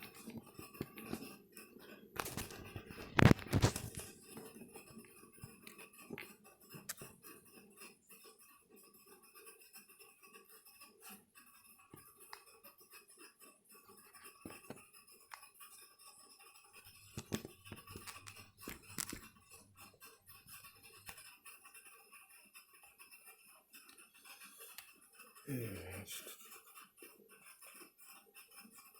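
Scattered small clicks, taps and handling noise from working on a laptop's case with a small screwdriver to remove its screws, with a few sharp knocks about three seconds in.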